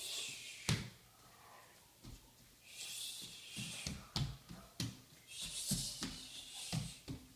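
A small child's bare feet patting and stepping on a wooden floor: a string of soft, irregular thumps with a few sharper knocks. Three spells of faint hiss come and go between them.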